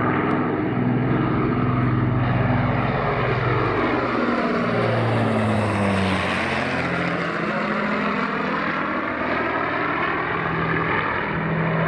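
Avro Lancaster's four Rolls-Royce Merlin V12 engines roaring as the bomber passes low overhead. The engine pitch drops about five to six seconds in as it goes over, and it stays loud as it flies away.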